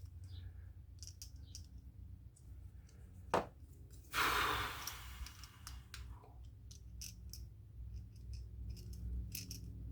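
Faint clicks and scrapes of a Spyderco Para 3 Lightweight folding knife being handled, with one sharp click about three and a half seconds in. Just after four seconds comes a short breathy exhale.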